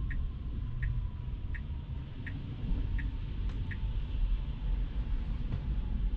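Tesla turn-signal indicator ticking about once every 0.7 seconds, signalling a left turn, over a low steady road rumble in the car; the ticking stops about four seconds in.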